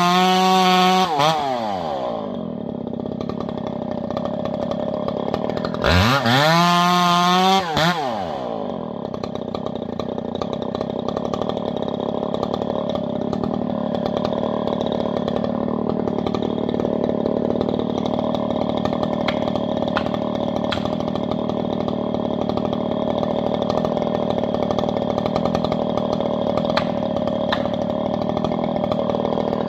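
Chainsaw engine at full throttle cutting into a standing balsam fir trunk, dropping to idle after about a second and a half. It is revved up again briefly about six seconds in, then idles steadily for the rest.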